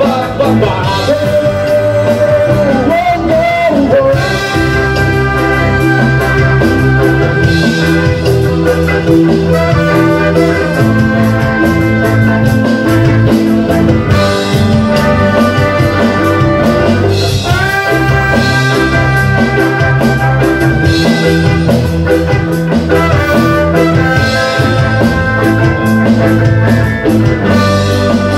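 Live reggae band playing: trumpet and trombone hold long horn lines, scooping up into the notes, over electric guitar, bass and drums.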